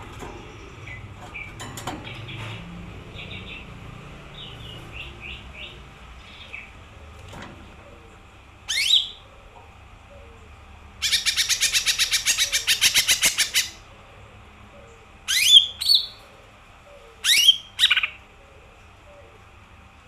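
Lesser green leafbird singing. Soft chirps and twitters open the song, followed by a loud rising whistle, a fast trill lasting about two and a half seconds, and near the end two pairs of loud up-sweeping whistles.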